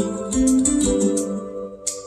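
Music playing: plucked acoustic guitar notes changing every fraction of a second.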